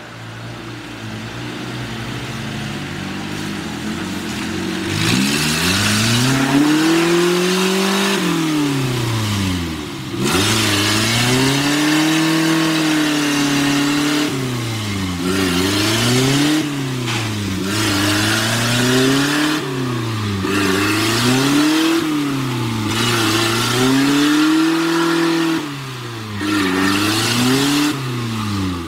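Off-road vehicle's engine revving hard, its pitch swinging up and down over and over, about once every two seconds in the second half, as the throttle is worked repeatedly.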